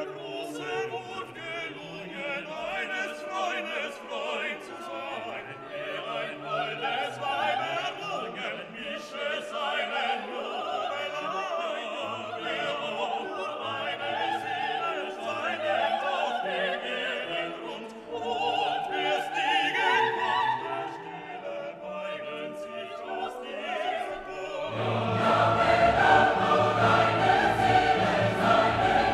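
Background classical music with choir singing over an orchestra, getting louder near the end.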